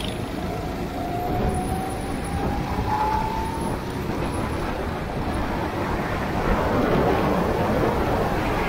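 Go-kart engine running on track, its pitch climbing steadily through the first few seconds as it accelerates, then lost under a loud, continuous rushing noise.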